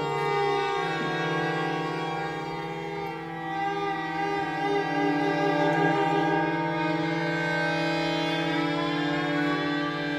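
String quartet of violins, viola and cello playing a contemporary piece: a deep held cello note under sustained higher string lines. About halfway through a middle note pulses in quick repeats, and near the end some of the upper lines slide in pitch.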